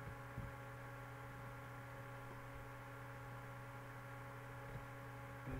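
Steady electrical mains hum: a low drone with several constant higher tones above it, with a faint tap about half a second in and another near the end.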